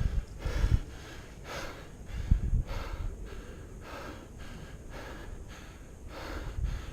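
A player's heavy breathing close to the microphone, a steady run of short breaths about one to two a second, with a couple of low bumps on the microphone.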